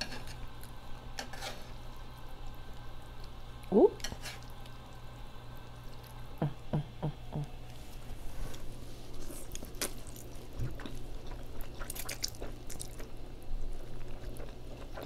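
Soft, close-miked eating sounds: wooden chopsticks tapping the plate while lifting instant noodles, then wet noodle slurping near the end.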